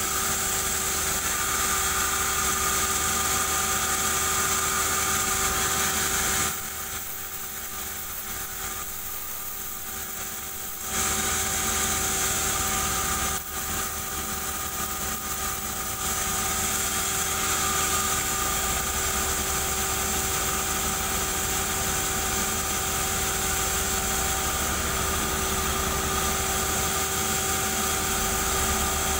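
Sawmill band saw running and ripping durian wood planks, a steady machine hum with a higher cutting hiss. The cutting hiss drops out for about four seconds a quarter of the way in, then returns, and fades again after about halfway while the saw keeps running.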